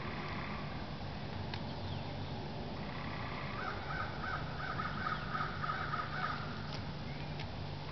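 A crow cawing in a quick series of short, harsh calls, about three a second, starting about three and a half seconds in and stopping after about three seconds.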